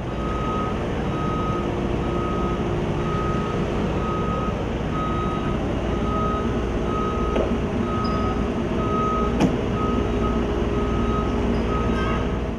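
Vehicle reversing alarm beeping steadily, a little under two beeps a second, over a low engine rumble.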